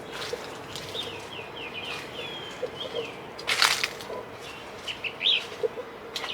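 A songbird singing a quick run of short, high, sliding notes, with a few more chirps later. A brief rustling burst comes a little past halfway.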